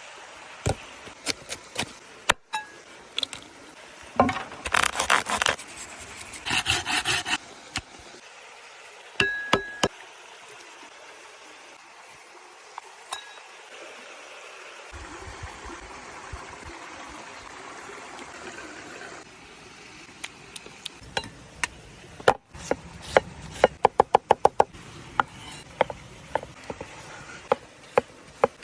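Outdoor cooking preparation sounds: scattered knocks and clinks with two stretches of rubbing and scraping, then a quick run of about a dozen sharp knocks a little past two-thirds of the way through.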